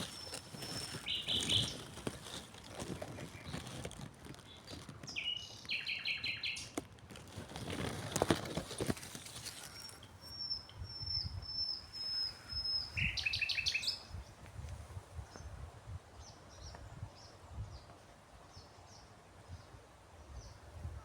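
Songbirds singing in short bursts of chirping notes, with a thin, high note repeated several times about halfway through and fainter chirps near the end. A couple of brief rustling noise swells pass over the microphone.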